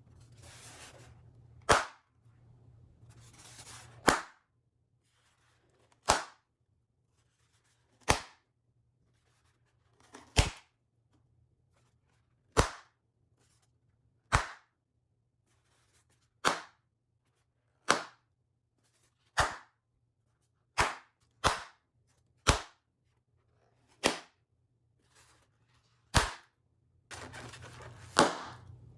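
Balloons popping one at a time, about sixteen sharp pops spaced a second and a half to two seconds apart. Before the first two pops and before the last one there is a rustling noise.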